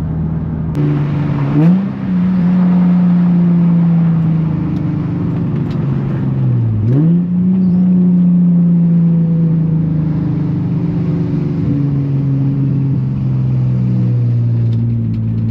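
Nissan 350Z's 3.5-litre V6 engine and exhaust running steadily under way. The revs briefly drop and climb again about two seconds in and again about seven seconds in.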